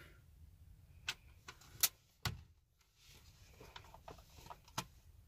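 A handful of sharp clicks and light knocks from a hard plastic dashboard bezel being handled, the two loudest about two seconds in.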